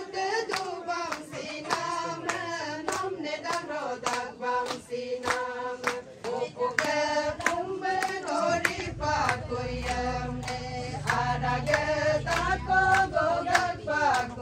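A group of people singing a song together while clapping their hands in a steady rhythm.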